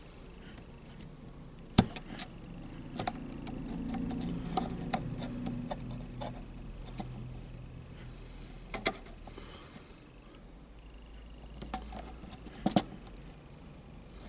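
Scattered small clicks and knocks from handling tools and parts at a workbench, the sharpest about two seconds in and a quick double knock near the end, over a low steady hum.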